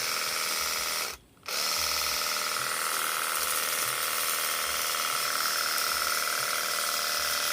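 Cordless battery-powered high-pressure washer running, its electric motor and pump giving a steady whine while spraying through the 25-degree nozzle. It cuts out briefly about a second in, then starts again.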